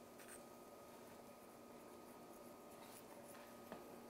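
Near silence: room tone with a faint steady hum and a few faint light ticks. The loudest is a small click near the end.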